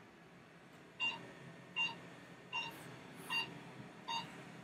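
Secret RF microneedling machine beeping: five short electronic beeps, evenly spaced a little under a second apart, starting about a second in. Each beep marks one needle and radio-frequency pulse as the handpiece is pressed along the neck.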